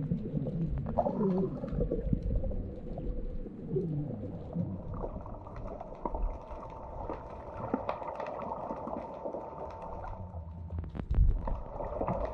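Muffled underwater sound picked up by a camera held under the sea: a steady low rumble of water moving around the camera, with faint sliding moans in the first few seconds, scattered small clicks, and a cluster of louder knocks near the end.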